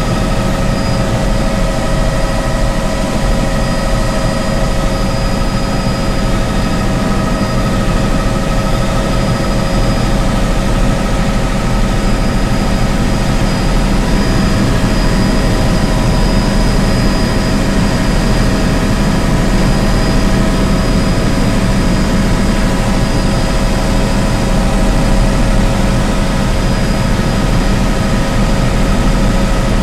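Helicopter engine and rotor noise heard from inside the cabin in steady flight: a loud, unchanging low hum with several steady whining tones above it.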